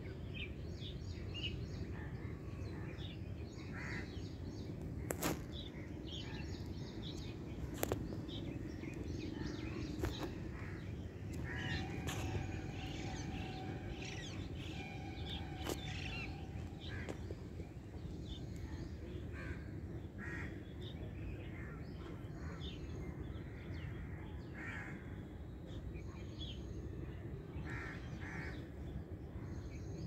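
Outdoor ambience of birds calling on and off over a steady low rumble, with a few sharp clicks in the first third. A steady tone with overtones holds for about four seconds near the middle.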